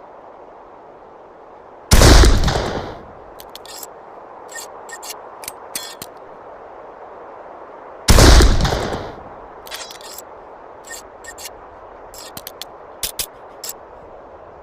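Two shots from a Morgan-James rifle about six seconds apart, each a loud crack that dies away over about a second. A scatter of short, sharp clicks follows each shot.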